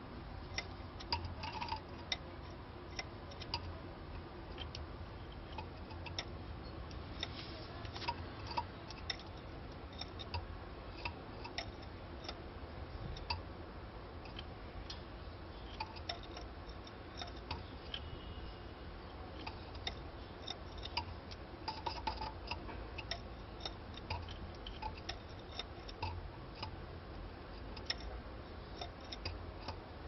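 Canaries moving about a wire breeding cage: irregular small clicks and taps from the birds hopping on perches and bars and pecking, with a few faint short chirps.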